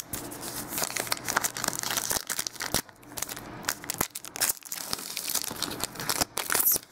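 Crimped trading-card pack wrapper crinkling and being torn open by hand: dense, irregular crackles and rustles, with short lulls about three and four and a half seconds in.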